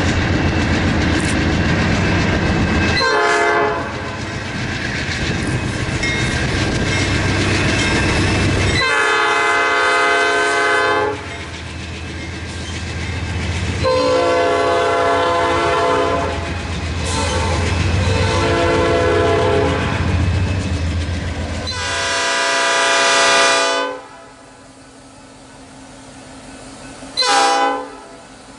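Nathan Airchime P5 five-chime locomotive horn sounding a series of blasts, one short and then several long ones, over the low rumble of a passing train. After the rumble fades, one more short blast comes near the end.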